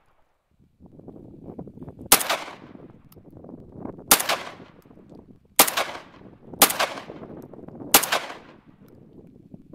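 Molot Vepr-12 12-gauge semi-automatic shotgun fired five times as single shots one to two seconds apart. Each shot is a sharp bang that trails off briefly.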